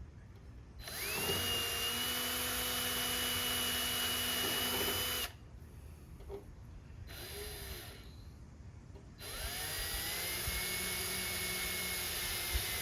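Power drill driving screws into hard plywood in two runs of a few seconds each. Each run starts with a whine that rises in pitch and then holds steady.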